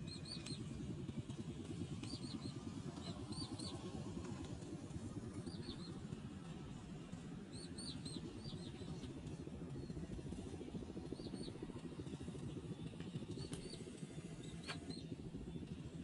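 A flock of shorebirds giving short, high, arched whistled calls, often two or three in quick succession, scattered through the whole stretch, over a steady low rumble.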